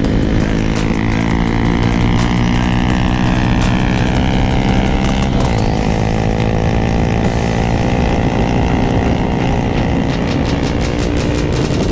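Suzuki Gixxer SF 250's single-cylinder engine running at speed, heard from the rider's seat. Its note slowly falls, breaks briefly about five and a half seconds in, then holds and slowly rises again.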